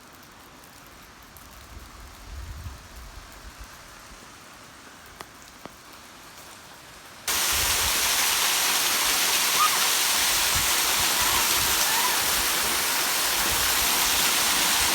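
Quiet outdoor air with a low rumble and a couple of faint ticks, then, about halfway through, the loud steady rush of a waterfall cuts in suddenly and continues.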